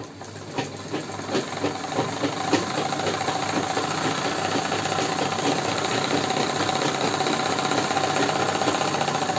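Sewing machine stitching the folded-in hem of a salwar leg: a few separate needle strokes at first, picking up speed over the first couple of seconds into a fast, steady run.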